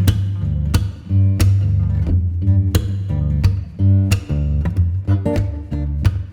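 Music with strummed guitar, a strong bass line and a steady beat.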